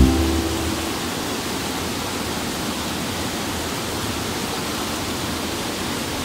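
Small waterfall cascading over rocks into a pool: a steady rush of white water. Background music fades out within the first second.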